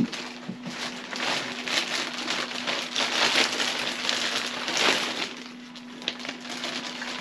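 Plastic packaging rustling and crinkling in irregular bursts as new climbing sticks are handled and unwrapped.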